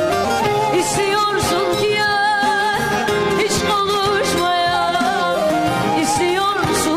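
A Turkish folk-style song playing: an ornamented melody with wavering notes over regular drum hits.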